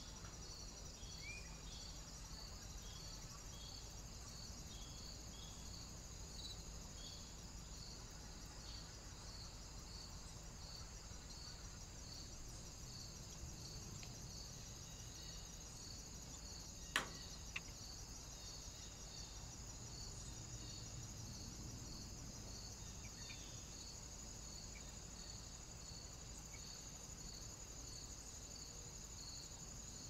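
Crickets chirping steadily, a regular pulse about every two-thirds of a second over a continuous high insect buzz. A single sharp click stands out about 17 seconds in, followed by a smaller one.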